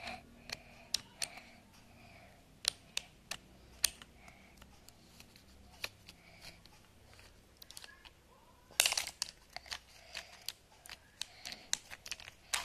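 Small plastic clicks and knocks from a take-apart toy fire truck being handled and pulled apart, with a quick clattering run of clicks about nine seconds in.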